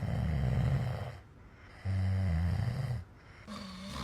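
A sleeping dog snoring: two long, low snores with a short pause between them.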